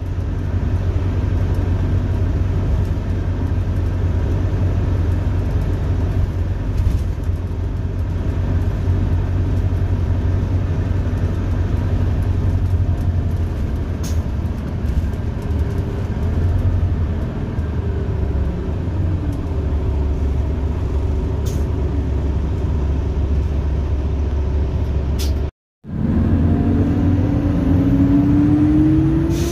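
Detroit Diesel Series 50 engine of a 2001 Orion V city bus heard from inside the cabin: a steady low drone with a few sharp clicks or rattles. Near the end the sound cuts out for a moment, then a rising engine tone comes in as the bus picks up speed.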